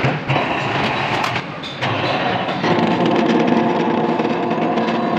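GQ-50 rebar bender's electric motor and gear drive running as its turning disc bends a ribbed steel bar into a stirrup. It is a steady mechanical drone, with a clearer hum setting in about halfway through.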